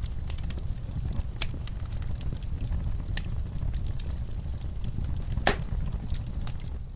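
Wood fire in a fireplace crackling and popping, with a steady low rumble under many small sharp crackles and one louder pop about five and a half seconds in.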